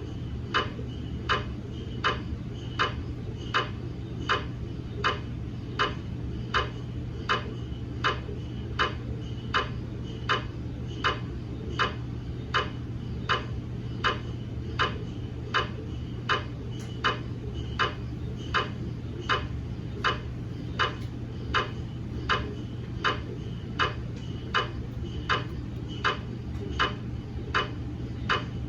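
GE MRI scanner's gradient coils knocking in a slow, even rhythm, about three knocks every two seconds, over a steady low hum, while it runs a daily quality-assurance scan.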